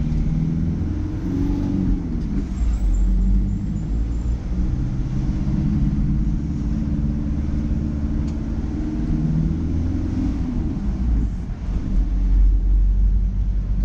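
Car engine running while driving along a city street, its hum rising and falling in pitch as the car speeds up and slows, over low road rumble.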